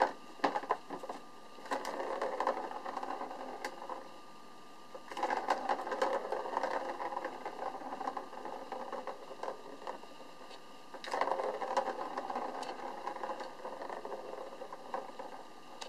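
Plastic ball rolling around the circular plastic track of a cat's ball-track scratcher toy, a rattling rumble that comes in several runs of a few seconds each, with sharp clacks in between as the kitten bats at it.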